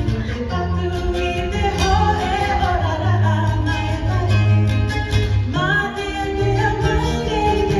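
Tahitian string band playing live: voices singing over strummed guitar and ukulele with a steady bass line.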